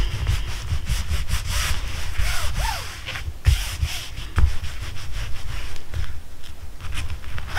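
Hands rubbing and smoothing a freshly glued patch onto the fabric of a screened shelter tent, pressing it down to make it stick: an irregular rustling swish of palms over fabric, with a couple of soft thumps a little past the middle.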